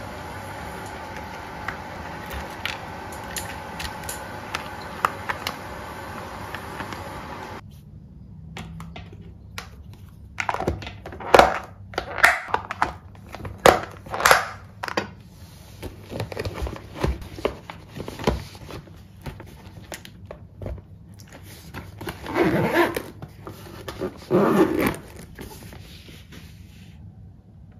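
A steady background hum with light taps as fried fish is set into a plastic lunch box with tongs. Then a run of sharp clicks and knocks as Lock & Lock plastic containers are handled and their snap-latch lids clipped shut. Near the end come two longer rasps, a lunch bag's zipper being pulled.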